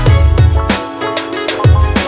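Background music with a steady electronic beat: deep kick drums, cymbal hits and held synth chords, the bass dropping out briefly in the middle.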